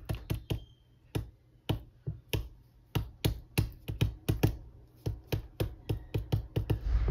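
Cotton swab tapped again and again onto cardstock to stipple paint: sharp, irregular taps about three a second, with a couple of short pauses in the first two seconds.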